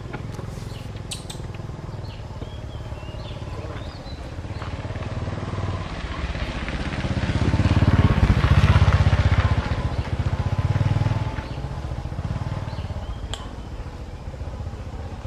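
A motor vehicle's engine passing by: a steady low running sound that grows louder to a peak about eight seconds in, then fades again.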